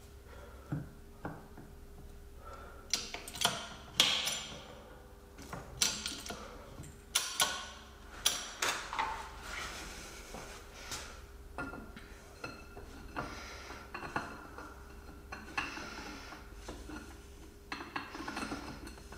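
Steel tools and ball joint separator parts clinking and clanking as they are handled and fitted, a string of irregular sharp metal knocks.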